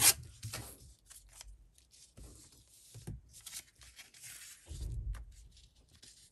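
Paper rustling and crinkling as it is handled, in short irregular bursts, with a sharp click at the very start and a soft low bump near the end.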